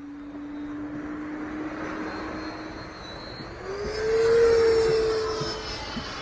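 Whine of a radio-controlled jet's 12-blade 70 mm electric ducted fan flying overhead. The steady whine climbs in pitch and grows louder about three and a half seconds in, is loudest a second later, then eases off. This is late in a long flight on one battery, and the fan still shows no sign of its power fading.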